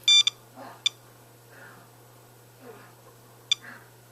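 Digital Geiger counter beeping at irregular intervals, each short high beep a detected radiation count, while it measures a smoke detector's radioactive source. A longer double beep sounds right at the start.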